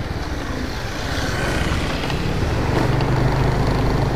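Motorcycle engine running steadily under way, a low even hum over road noise that grows slightly louder about three seconds in.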